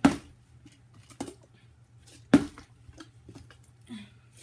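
Plastic water bottle being flipped and landing with hard knocks on a book lying on the floor: a loud knock at the start, a smaller one about a second in, and another loud one a little over two seconds in.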